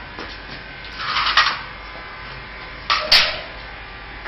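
Steel angle frame of a handloom being handled as it is fitted together: two short scraping rattles, one about a second in and one about three seconds in, over a steady low hum.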